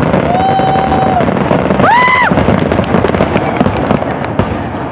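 Fireworks finale barrage: many aerial shells bursting in quick succession, a continuous rumbling din full of sharp cracks and crackle, with the crackling thickest near the end.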